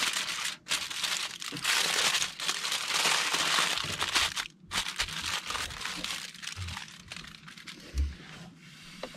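Aluminium foil crinkling as it is folded and crimped shut into a packet around a fish fillet. The crinkling is dense and loud through the first four and a half seconds, with two short breaks. After that it turns into softer, scattered crinkles as the packet is pressed closed.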